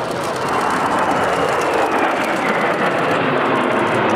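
Six Kawasaki T-4 jet trainers, each with twin turbofan engines, flying overhead in a formation climb: steady jet engine noise that grows a little louder about half a second in.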